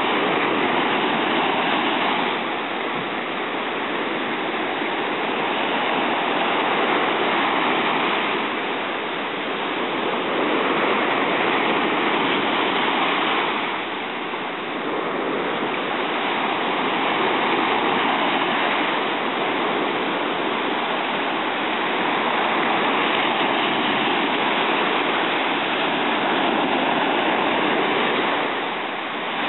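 Ocean surf breaking and washing up a sandy beach: a steady rush of water that swells and eases every few seconds.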